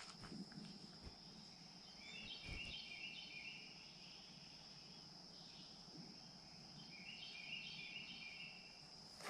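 Faint woodland ambience: a steady high-pitched insect drone throughout, with two short bursts of songbird chirping about two seconds in and again about seven seconds in.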